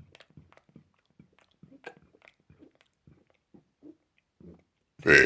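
Faint scattered clicks and smacking mouth sounds for several seconds, then a loud man's burp bursts in near the end and keeps going, the loudest thing here.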